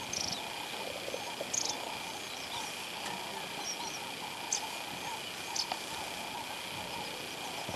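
Steady high-pitched chorus of insects, holding two even tones, with several short high chirps scattered through it.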